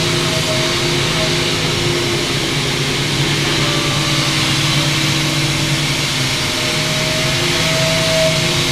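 CNC milling machine running: the spindle hums with a few steady tones while the end mill cuts aluminium, over the steady hiss of a cold air blast on the tool. The tone grows a little stronger near the end.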